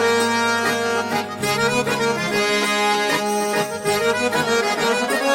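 Instrumental intro of a Hindi pop song: a held, reedy melody over a steady beat.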